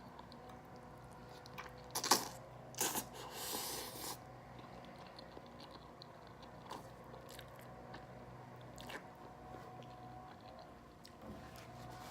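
Close-up sounds of a person chewing creamy pasta, with two sharp clicks about two and three seconds in and a short hiss-like noise just after. A faint steady hum sits under it.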